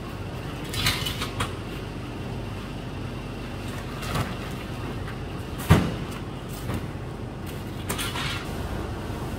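Sack-wrapped bales of dried stalks being heaved onto a truck's steel bed, with several thumps and knocks. The loudest comes just before halfway through, over steady background noise.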